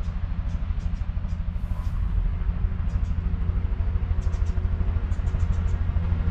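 A vehicle running with a steady, heavy low rumble and a rapid even pulsing.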